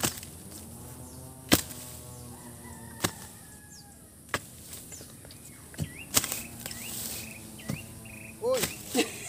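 Sharp single knocks, about one every second and a half, with a quicker cluster near the end. Short high chirps repeat about twice a second through the second half.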